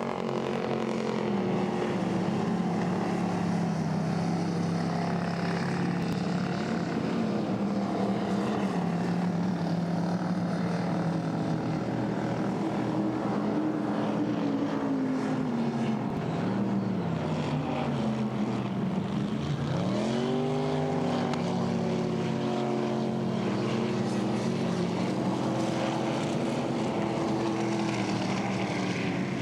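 Racing boat engines running hard, several engine pitches heard at once; about two-thirds of the way through the pitch drops away and then sweeps sharply back up.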